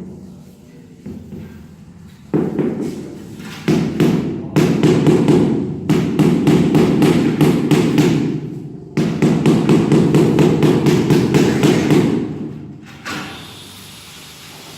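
Rapid repeated knocking, about five blows a second, in bursts of several seconds that stop about twelve seconds in.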